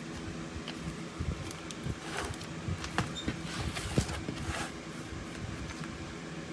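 Irregular small clicks, taps and scrapes of hands handling laptop parts during a battery swap, the sharpest knock about four seconds in, over the steady hum of an electric fan.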